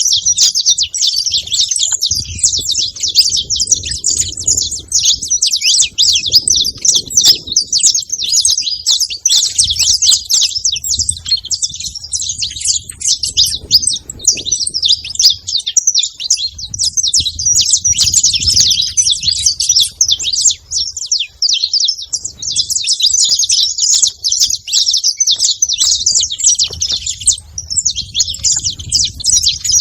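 A group of saffron finches chattering at a feeding spot, many high chirps overlapping in a dense, unbroken stream.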